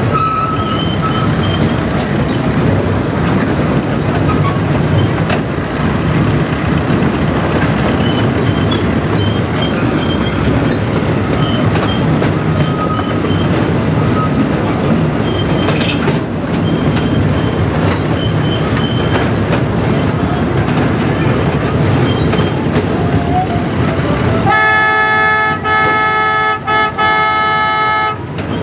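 Miniature diesel train rolling along its track, a steady rumble with faint high squeaks now and then. Near the end the locomotive's horn sounds a multi-note chord in about three blasts close together.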